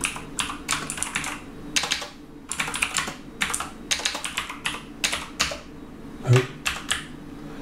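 Typing on a computer keyboard: quick runs of keystrokes with short pauses between them as a shell command is entered.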